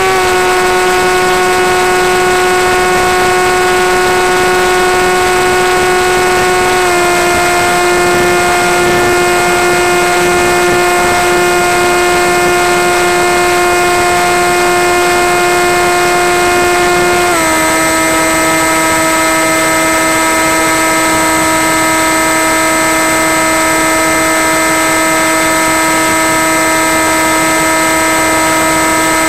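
Skywalker FPV plane's electric motor and propeller running with a steady whine, stepping down in pitch right at the start, about seven seconds in and about seventeen seconds in as the throttle is eased back and the motor's current draw falls.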